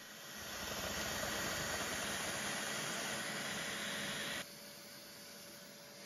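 A shop vac running with a steady rushing hiss, sucking up the water pooled in the dishwasher's gray plastic base well, the water that made the dishwasher sense a leak and throw its E1 error. About four seconds in it drops abruptly to a quieter steady rush with a faint whine.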